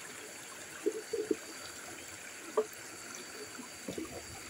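Shallow rocky stream trickling and gurgling steadily, with a few short faint taps scattered through.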